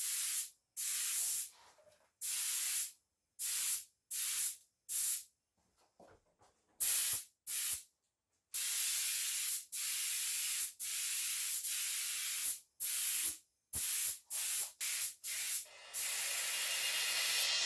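Bursts of spraying hiss that start and stop sharply many times: mostly short squirts under a second long, and one held for about four seconds in the middle.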